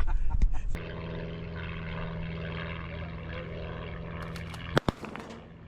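Wind buffeting the microphone for the first second, then a steady engine drone with an even low hum. A sharp knock sounds near the end.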